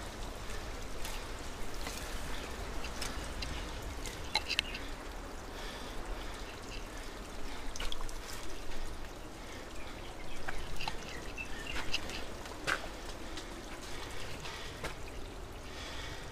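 Footsteps scrambling up a steep slope of loose soil and gravel, with irregular scuffing and scattered small clicks of stones and rustles of dry plants.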